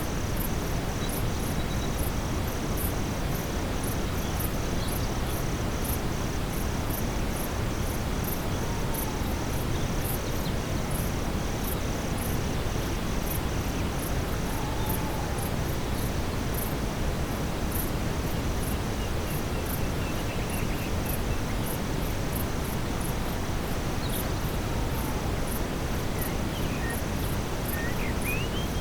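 Steady brown noise blended with a nightfall forest ambience: night insects chirp in fast, continuous pulses high above the deep rushing noise, with a few faint short calls, one rising sharply near the end.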